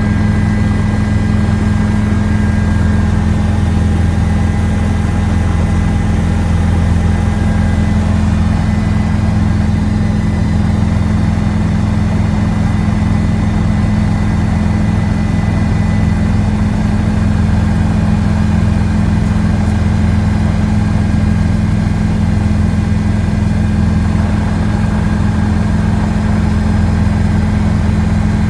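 Helicopter in flight: the loud, steady drone of its engine and rotor, with a few thin, steady whining tones above it.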